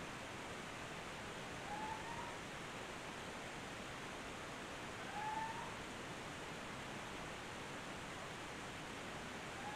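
A short rising cry, heard twice about three seconds apart and louder the second time, over the steady hiss of a field recording; it is unclear whether it is a bird or another creature.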